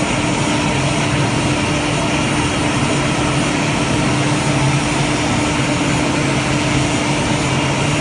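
CNC wood router spindle cutting into a wooden panel, with the dust extraction drawing through the hose: a loud, even rushing noise over a steady hum.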